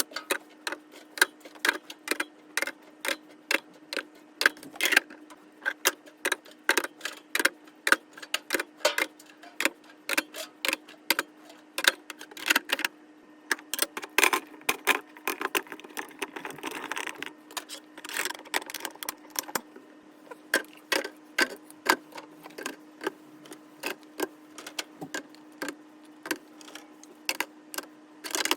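Containers and jars being handled and set down on fridge shelves: irregular knocks and clinks, two or three a second, with a brief stretch of rustling about halfway through. A steady low hum runs underneath.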